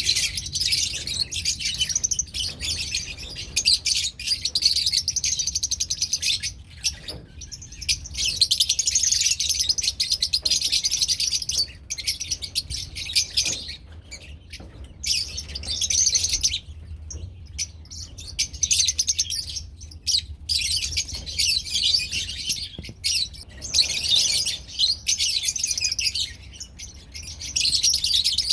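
Lovebirds chattering and chirping: dense high-pitched chatter in stretches of a few seconds with short pauses between, over a steady low hum.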